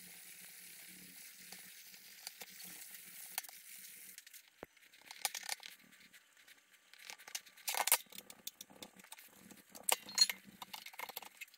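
Cloth rag rubbing and polishing a brazed cast-aluminum casing: quiet, irregular scuffing strokes, a few louder near the end. A faint steady hiss runs through the first few seconds.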